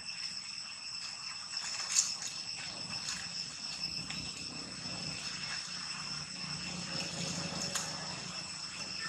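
Insects trilling steadily at several high pitches, with a few short clicks and rustles, the sharpest about two seconds in.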